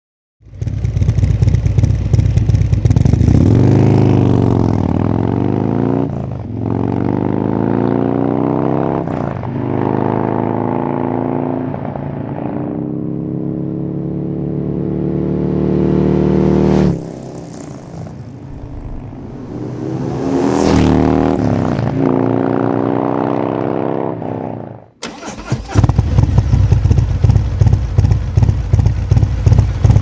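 Harley-Davidson Milwaukee-Eight 128-inch V-twin with an S&S 475 cam, running through a Fullsac headpipe and Khrome Werks HP-Plus 4.5-inch mufflers with louvered baffles. It accelerates hard, its pitch climbing and dropping back at each of several upshifts, then eases off as the bike passes. About 25 seconds in, the sound cuts to the same engine close up, idling with a loud, pulsing beat.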